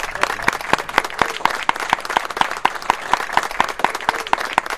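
A small group of people applauding, a dense run of hand claps.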